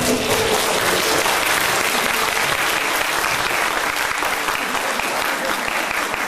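Theatre audience applauding, a steady wash of clapping.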